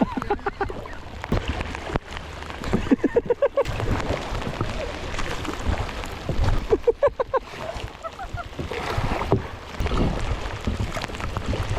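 Steady low rumble of a boat under way, with wind on the microphone, broken three or four times by short bursts of people's voices.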